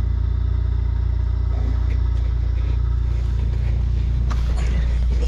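Car engine idling steadily, heard from inside the cabin, with a few brief clicks and rustles near the end.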